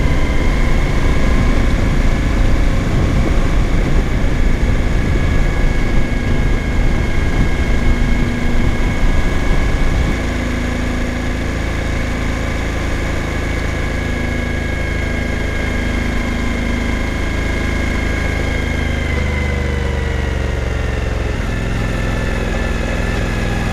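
Suzuki V-Strom 1000 V-twin engine running under way, with rushing wind. About ten seconds in it becomes a little quieter and steadier as the throttle eases. Near the end the engine note falls as the bike slows.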